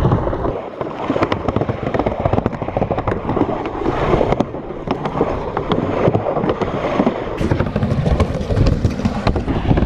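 Skateboard wheels rolling over pump-track rollers, a steady rumble that swells and dips, with many irregular clacks and knocks from the board and trucks.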